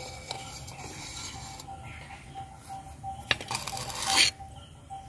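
Metal spatula scraping and knocking against a clay pot and plate as a steamed, leaf-wrapped fish parcel is lifted out of the rice: a sharp click about three seconds in, then a short, louder scrape.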